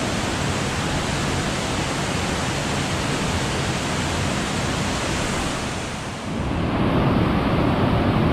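Steady rush of water over a rocky river rapid. About six seconds in it dips briefly, then comes back louder and deeper.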